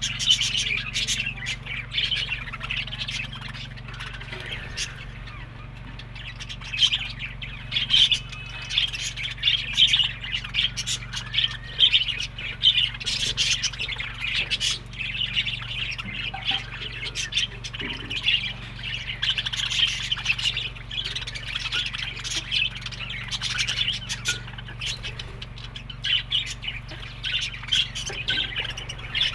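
A flock of budgerigars chattering, a dense continuous stream of chirps and squawks, over a steady low hum.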